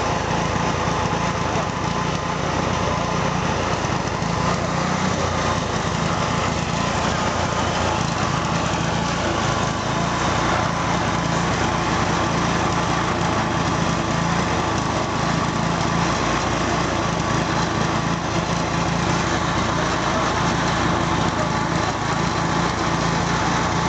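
A small engine running steadily, with no change in speed.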